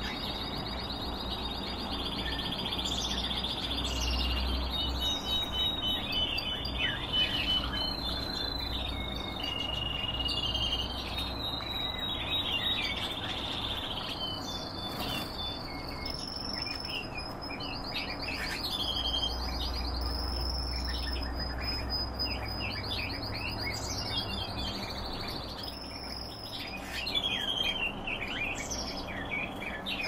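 Small caged songbirds singing continuously: overlapping high whistled phrases and fast trills mixed with many short chirps and twitters.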